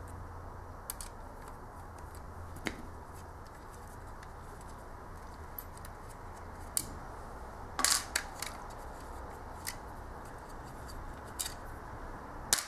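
Scattered small clicks and metallic taps as screws are turned and worked out of the metal frame of a 3.5-inch hard drive with a screwdriver and fingers, with a louder cluster of clicks about eight seconds in.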